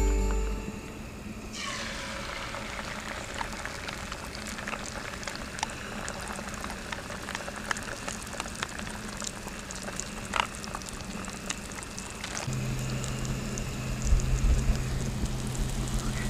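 Beaten eggs hitting hot bacon fat in a frying pan and sizzling steadily, starting suddenly about a second and a half in.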